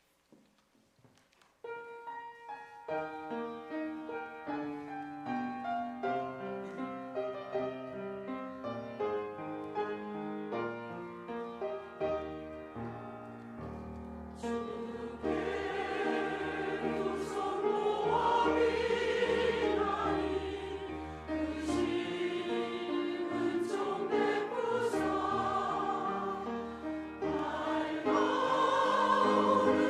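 Church choir singing a hymn with piano accompaniment. The piano plays the introduction alone, and the choir comes in about halfway through, growing fuller and louder toward the end.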